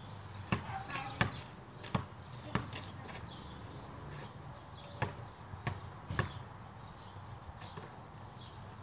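A basketball being dribbled on a driveway: about seven sharp bounces, four in the first few seconds, a pause, then three more close together a little past the middle.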